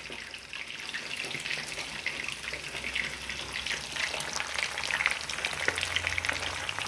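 Whole fish deep-frying in hot vegetable oil in a cast-iron skillet: a dense, crackling sizzle of the oil bubbling around the fish.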